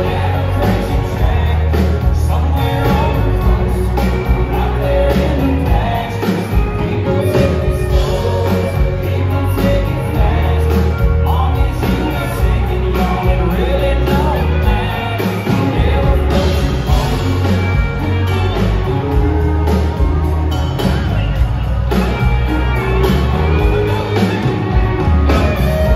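Live country band playing a song, with singers taking the vocal over electric guitars and a drum kit keeping a steady beat.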